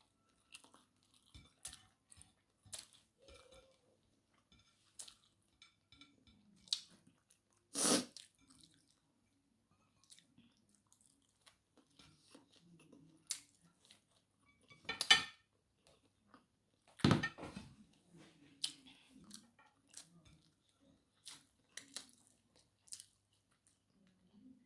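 Close-up chewing and mouth sounds of a person eating rice and fried fish by hand, with many small clicks and three louder sharp sounds about 8, 15 and 17 seconds in.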